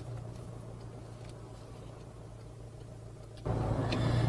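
Steady low hum of a car's engine and road noise heard inside the cabin while driving. About three and a half seconds in, the noise suddenly gets louder and fuller.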